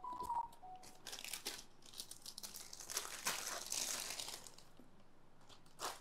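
Thin clear plastic bag crinkling and rustling in irregular spurts as a bike phone mount is unwrapped from it, with a few light clicks of plastic parts.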